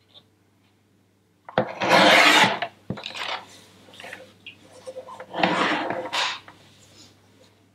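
Sliding-blade paper trimmer cutting through thick card: two cutting strokes of the blade head along the rail, each about a second long, one about a second and a half in and the other a little after five seconds in. Softer scraping of the sheet being turned on the trimmer comes between them.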